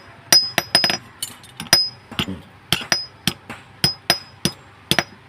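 Blacksmith's hammer striking metal in a steady run of blows, about three a second, each with a short high ring.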